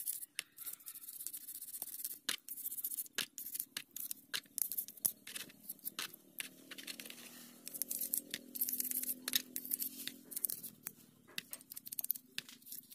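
An old brush scrubbing the petrol-wet aluminium main body of a Bajaj four-stroke three-wheeler carburetor: a run of irregular bristle scratches and small clicks against the metal.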